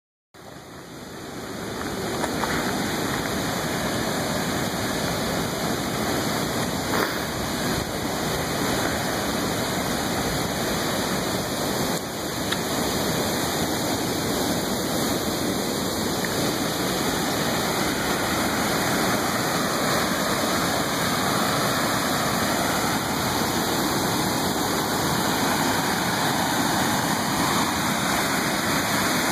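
Steady rushing of a river pouring over rocky falls and cascades, fading in over the first couple of seconds.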